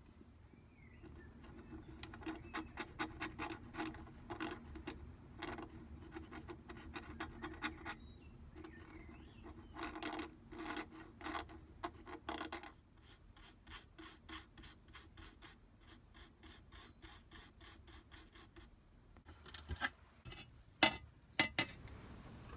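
A soft-haired brush rubbing and flicking glass paint across a glass sheet, a run of quick scratchy strokes that settles into a light patter of about four strokes a second. Near the end come a few sharper knocks.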